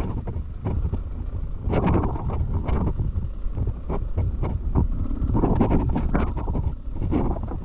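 Enduro dirt bike's engine running while riding a rough trail, with frequent sharp knocks and rattles and wind on the microphone.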